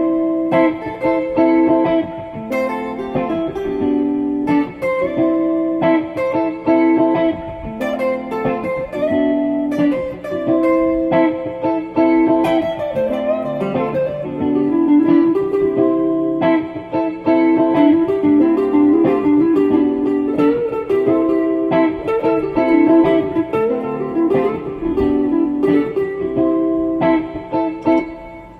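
Guitar music: a plucked melody played over bass notes, stopping right at the end.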